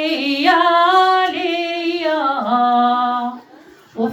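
A woman singing a traditional Moroccan henna-night song for the bride, unaccompanied, holding long drawn-out notes that step downward. She breaks off about three seconds in and takes up the next line just at the end.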